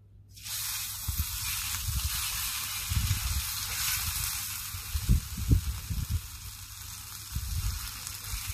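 Sirloin steak laid onto hot oil in a pan, starting to sizzle suddenly about half a second in and then sizzling steadily. There are a few low bumps of handling underneath, the strongest just after the middle.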